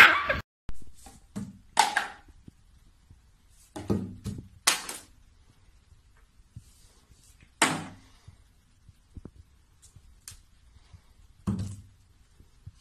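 A loud thump at the start, then a string of separate knocks and clatters at uneven gaps as plastic toiletry bottles are pawed and knocked over by a cat on a tiled shelf.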